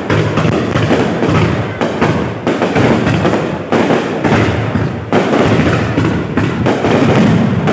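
Fireworks going off in quick succession: deep booming thuds, one every second or two, each trailing off into the next.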